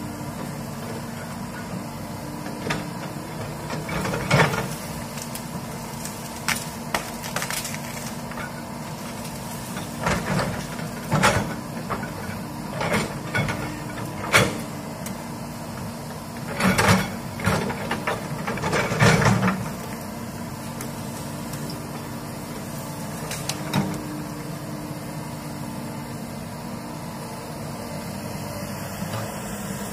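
Komatsu hydraulic excavator's diesel engine running steadily while its bucket pushes through felled trees and brush, with repeated sharp cracks and snaps of breaking branches and wood. The snapping comes in bursts, loudest a little past the middle.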